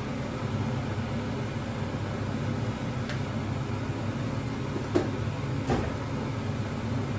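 Steady low hum of a gas stove burning under an omelette pan in a home kitchen. Three light utensil clicks come in the second half.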